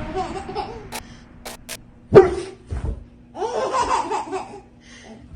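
A dog barks once, sharply, about two seconds in, with laughter around it.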